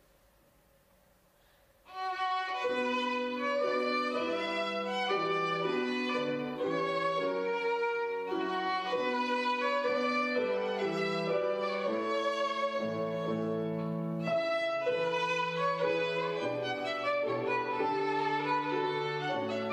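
Near silence, then about two seconds in a violin and piano begin a classical piece together: sustained bowed violin notes over piano accompaniment.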